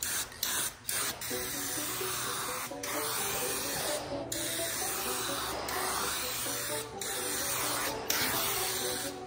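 High-output 'turbo can' aerosol of clear coat hissing in a string of spray passes about a second long, with brief breaks between them, laid lightly over a truck roof. Background music plays underneath.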